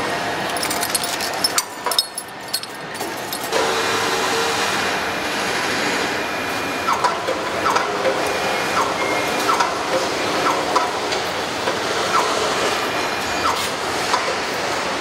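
Factory assembly-hall noise: a steady hum of machinery with clicks and clinks of tools and metal parts. From about four seconds in, short chirps repeat roughly once a second.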